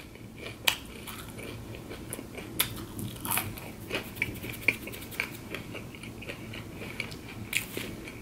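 Close-miked chewing of a crispy breaded chicken nugget dipped in cheese sauce: irregular crunches, a few of them sharper and louder.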